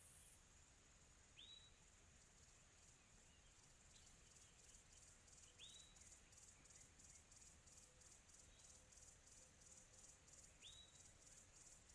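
Faint tropical afternoon ambience: crickets chirring steadily and high, with a short upward-sweeping call heard three times, about every four to five seconds.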